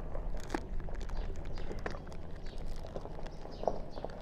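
Plastic heat-shrink bag rustling and crinkling as its neck is gathered around a straw and fastened with a zip tie, with scattered small clicks over a low steady hum.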